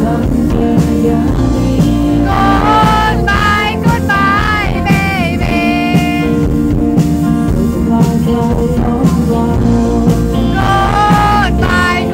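A live band plays a slow rock song on acoustic guitar, electric bass and drums, with a singer's voice over it. The sung phrases come in about two seconds in, hold to about six seconds with sliding, ornamented notes, and return near the end.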